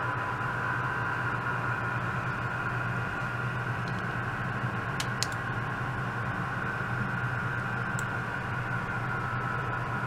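Steady hum and hiss of running laboratory electronics, with a held high whine and a low hum underneath. A few faint clicks come around the middle.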